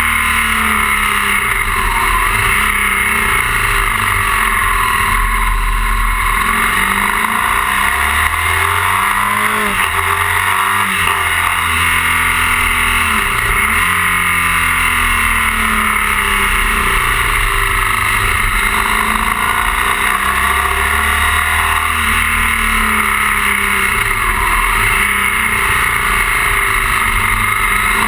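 BMW R 1200 GS boxer-twin engine running under way, its pitch repeatedly rising under throttle and dropping back, over a steady rush of wind and road noise.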